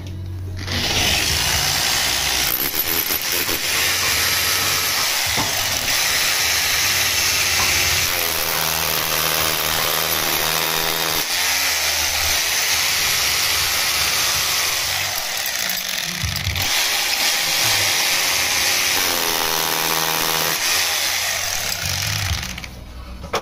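Rotary hammer drilling into a brick wall with a masonry bit, a steady loud hammering whir that runs almost without break and stops near the end.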